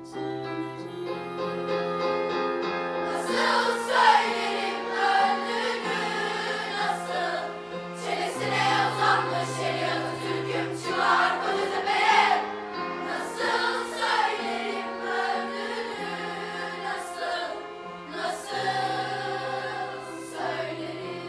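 Mixed children's choir singing with piano accompaniment; the voices come in about three seconds in over held piano notes.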